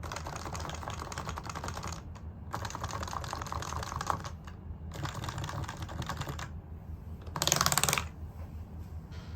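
Fast typing on an HHKB Pro 2 keyboard with its stock Topre rubber-dome switches, lubed, in three runs of rapid key clacks with short pauses between, then a brief, louder clatter near the end.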